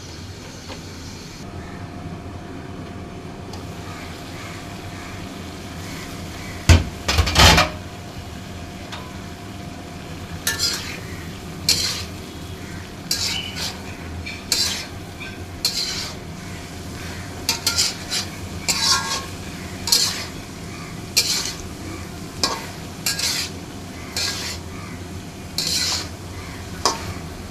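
A spatula stirring and scraping kochur loti (taro stolons) in a cooking pan over a steady sizzle of frying. There is a louder clatter about seven seconds in, then short scrapes against the pan roughly once a second.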